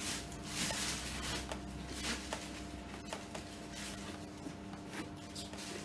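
Soft rustling and small handling noises of a cloth dust bag as a handbag is slid out of it, over a faint steady hum.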